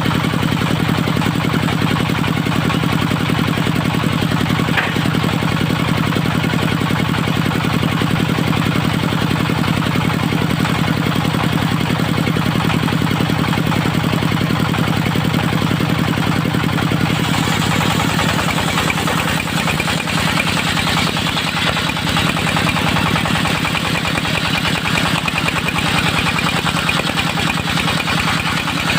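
Engine of a portable circular sawmill running steadily at a constant speed. About two-thirds of the way through, a harsher, hissier sound joins in over the engine and continues.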